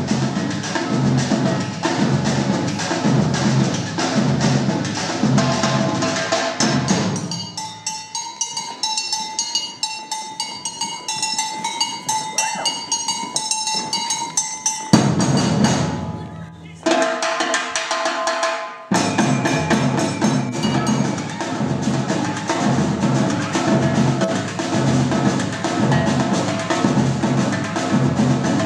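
Samba batucada: surdo bass drums and snare-type drums playing a fast, driving samba rhythm. About seven seconds in the deep drums drop out for a break of several seconds in which only lighter, higher-pitched percussion keeps the beat, then the full drum section comes back in.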